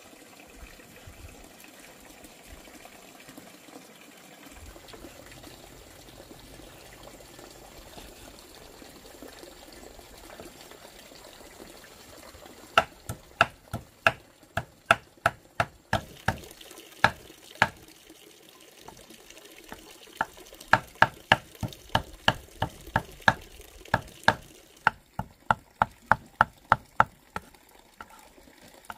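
Water running from a bamboo spout, then a cleaver chopping pork fat on a round wooden chopping board: sharp knocks a few times a second, in two runs with a short pause between them.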